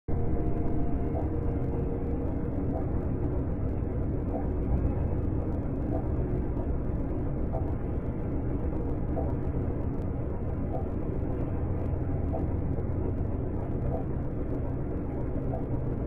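Steady low rumble, with a faint short note repeating about every second and a half.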